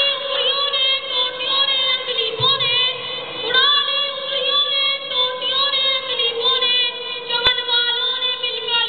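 A boy's high-pitched voice declaiming an Urdu speech in a sing-song way, drawing out long held syllables between short pauses.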